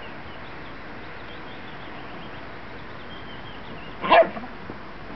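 A Chinese crested powderpuff dog gives one short bark about four seconds in, over a steady outdoor hiss with faint bird chirps.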